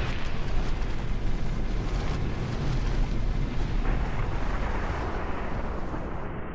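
Loud, steady rumbling roar of noise with a fine crackle over it, with no music. Near the end it suddenly turns duller and more muffled.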